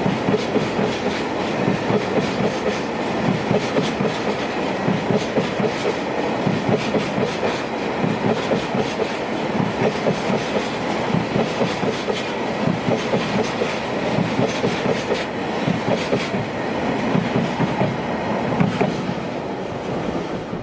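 Freight train wagons rolling past close by, their wheels clicking and clacking over the rail joints in a dense, continuous run of knocks over a steady rumble. The sound cuts off abruptly at the very end.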